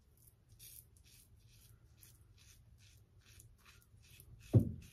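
Above The Tie S2 slant open-comb safety razor scraping through lathered stubble in short strokes, a faint scratchy rasp about three times a second. A single low thump near the end.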